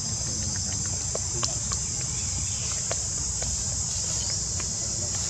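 Steady high-pitched insect drone over a constant low rumble, with scattered small clicks; the sharpest click comes about a second and a half in.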